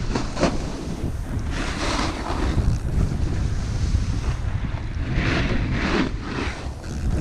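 Snowboard sliding and turning through snow, each turn a broad swish, over a steady rumble of wind on the microphone.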